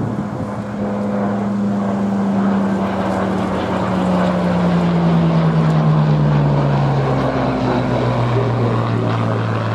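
Supermarine Spitfire's V12 piston engine in a low flypast, its note falling steadily in pitch as it passes. The sound swells to its loudest about six seconds in, then eases slightly.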